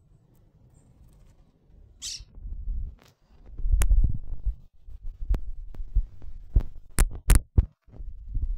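Low, uneven rumble and bumps of handling noise on a phone microphone, with several sharp clicks, the loudest pair near the end.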